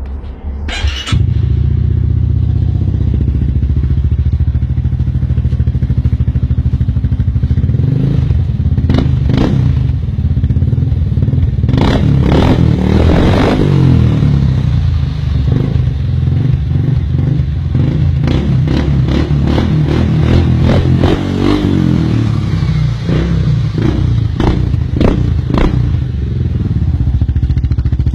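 Honda SH300 scooter's single-cylinder engine running loudly through an Akrapovic aftermarket exhaust. It jumps in level about a second in, then runs steadily with short bursts of throttle in the middle and again later.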